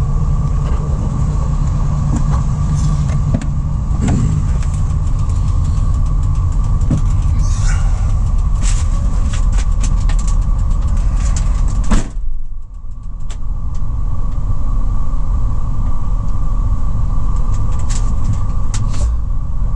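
The 2004 GMC Savana 3500's 6.0-litre V8 idling steadily, with scattered clicks and a sharp thump about twelve seconds in, after which the sound briefly drops away.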